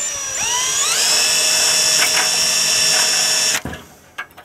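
Cordless drill spinning up and drilling through a bracket hole into the steel wall of a drum smoker. The motor whine rises over the first second, holds steady, and cuts off suddenly about three and a half seconds in, followed by a few light clicks.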